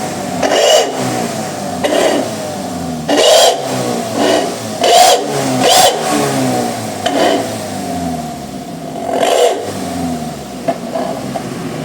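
Daihatsu Gran Max van's engine revved in about eight short throttle blips, settling back to idle between them, through a newly fitted aftermarket exhaust tuned for a deep snoring ('ngorok') note.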